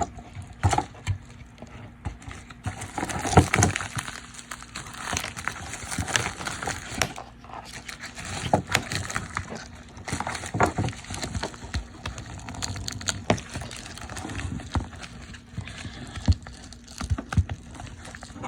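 Hands handling a headset's plastic Bluetooth module: irregular plastic clicks, taps and rustling as the battery compartment is fiddled with.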